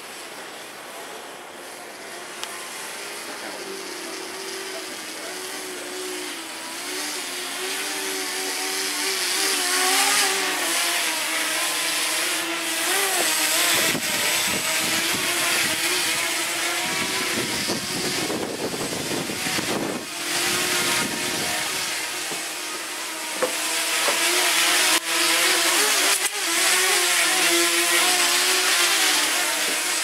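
Small RC tricopter's brushless motors and propellers buzzing in flight, the pitch wavering up and down as the throttle is worked. Wind rumbles on the microphone for several seconds around the middle.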